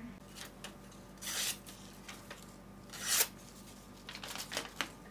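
Sheets of lined paper rustling and crinkling as hands handle them, in several short bursts.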